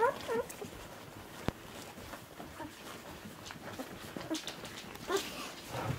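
Nine-day-old Golden Retriever puppies squeaking and whimpering: a couple of short high squeaks at the start and another small whine about five seconds in, with soft rustling and one sharp click in between.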